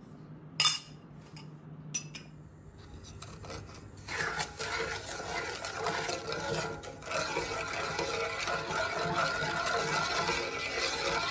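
A metal spoon clinks sharply against an aluminium pot about a second in, with a lighter clink near two seconds. From about four seconds in, a wooden spoon stirs a brine of water, oil, vinegar, sugar and salt in the pot steadily, dissolving the salt and sugar.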